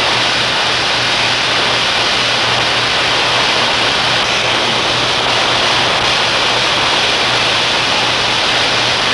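High-pressure live steam rushing from a leaking street steam pipe: a loud, steady hiss.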